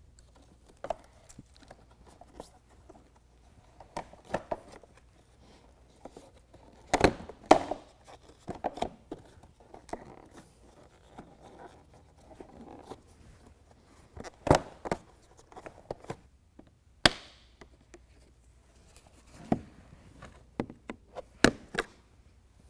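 Plastic retaining clips snapping loose as a plastic bumper cover section is pried and pulled off a Jeep Gladiator's factory rear bumper. A dozen or so sharp snaps come at uneven intervals, with quieter rubbing and handling of the plastic between them.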